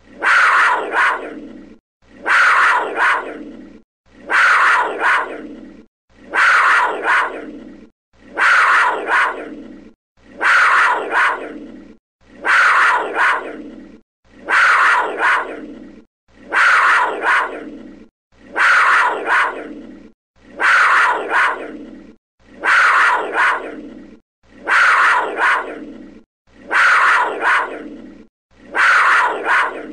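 A big cat's call, labelled a panther, played as a loop: the same call repeats about every two seconds, each one starting sharply, with a second shorter call close behind, then fading out.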